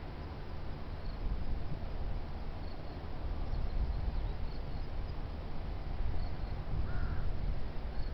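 Strong wind buffeting the microphone in a steady low rumble, with faint short high chirps scattered through it and a single short call about seven seconds in.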